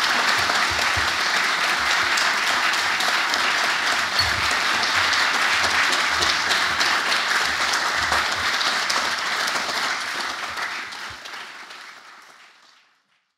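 Audience applauding steadily, dying away over the last few seconds.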